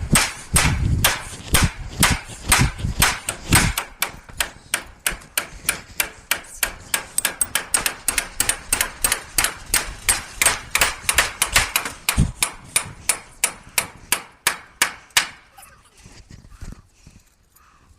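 Hammer blows on roof timber in a steady rapid rhythm, about three to four strikes a second, stopping shortly before the end.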